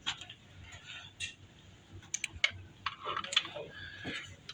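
Scattered light clicks and ticks of a Phillips screwdriver and small metal parts as screws are taken out of a printhead carriage. The clicks come unevenly, several close together about halfway through.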